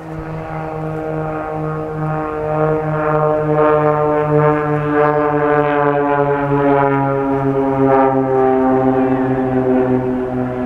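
Propeller drone of Extra 300 aerobatic aircraft flying in close formation during a vertical climb. It is one steady engine-and-propeller tone that slowly falls in pitch, grows louder toward the middle, then eases a little.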